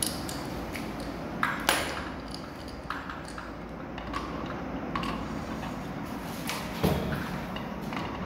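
Scattered metallic clinks and taps of a wrench and brass plumbing fittings as a braided flexible hose is screwed onto the brass valve of a water heater and tightened.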